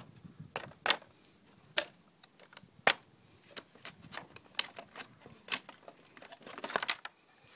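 Irregular sharp clicks and taps of a Tyne folding kayak's frame parts and small brass-screwed fittings being handled during disassembly, with a quick rattling cluster of clicks near the end.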